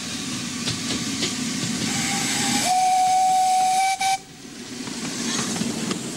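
Steam whistle of a 7¼-inch gauge miniature steam locomotive: one steady blast of about two seconds with a hiss of steam, cutting off sharply about four seconds in. The locomotive and its carriages run past with a rumble and scattered clicks from the track.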